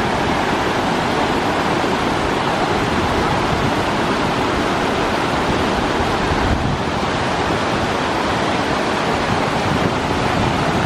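Steady rush of the Tahquamenon River's falls and rapids running high.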